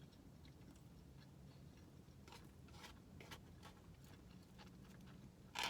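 Faint chewing and mouth clicks over a low, steady hum, with a brief louder mouth sound near the end.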